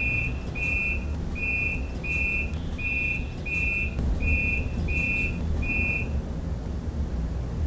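Electronic beeping: nine short, evenly spaced high beeps, about one and a half a second, stopping about six seconds in, over a steady low rumble.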